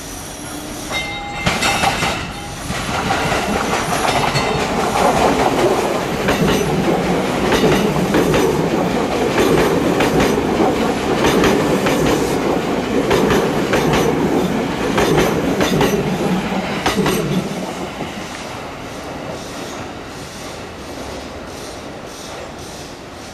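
Six-car JR 209 series electric train passing through a station without stopping: a rumble that builds as it nears, wheels clacking rhythmically over the rail joints while the cars go by, then fading as the train pulls away. A brief high tone sounds about a second in.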